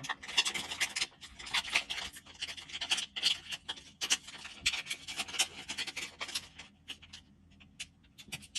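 Trading card pack being opened: the wrapper crinkles and the cards rub and scrape against each other as they are handled. A run of scratchy rustles and small clicks thins out after about five seconds.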